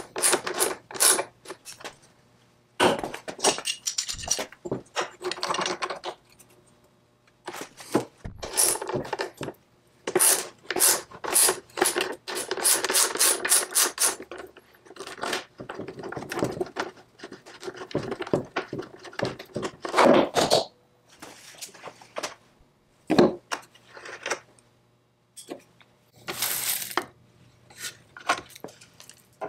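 Socket ratchet clicking in quick runs as bolts are worked loose, between metallic clinks and scrapes of tools and parts being handled.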